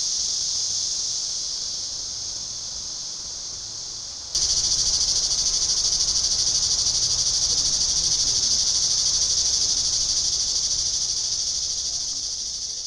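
Steady, high-pitched buzzing of a chorus of insects, with no other sound standing out. It jumps louder about four seconds in and fades away near the end.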